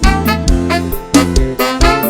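Instrumental passage of a sertanejo song, with no singing: a band playing over a steady beat and a strong bass line.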